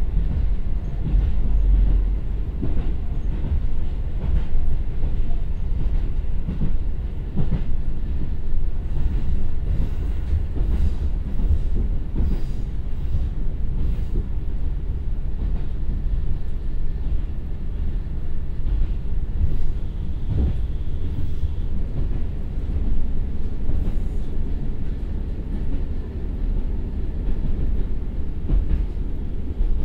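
Inside a KiHa 150 diesel railcar running on jointed rail: a steady low rumble of wheels and running gear, with irregular knocks from rail joints, as the car slows from about 55 to under 50 km/h.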